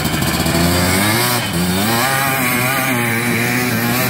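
Yamaha Blaster YFS200 quad's two-stroke single-cylinder engine through an FMF full exhaust, ridden hard, its note rising and falling over and over as the throttle is worked, with a dip a little over a second in.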